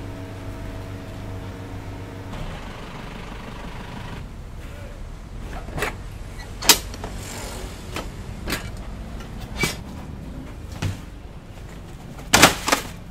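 Irregular sharp knocks and clanks of work at a charcoal chicken grill, about half a dozen spread through the second half, the loudest a quick cluster of two or three near the end. Under them is a steady background hum that carries a few steady tones in the first couple of seconds.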